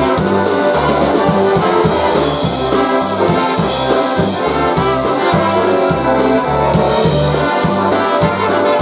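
Live polka band playing dance music, with a steady bass beat under the melody.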